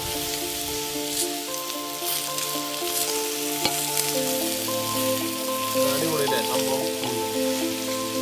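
Beef steaks sizzling as they grill on hot stones, a steady hiss with occasional crackles, under background music.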